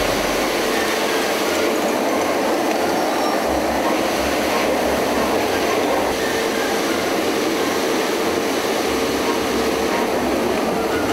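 Iveco Eurocargo truck-mounted street sweeper running as it sweeps the gutter: a steady loud mechanical rush of its engine, suction and rotating gutter broom, with a humming tone coming in about halfway through.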